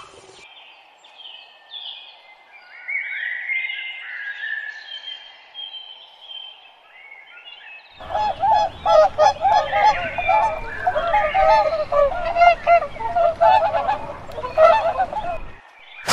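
A bird calling with a series of short, high, sweeping chirps. About halfway in this cuts to a flock of birds honking loudly and rapidly, many calls overlapping, which stops shortly before the end.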